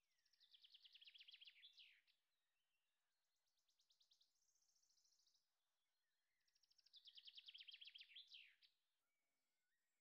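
Faint birdsong: a songbird's rapid trill that swells and ends in a quick downward slur, sung twice, with a softer, higher trill in between.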